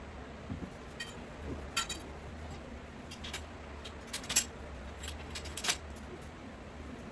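Grow-tent frame poles and connectors clinking and clicking as they are handled and fitted together: a string of short metallic clinks, the loudest a little past four seconds and near six seconds, over a steady low hum.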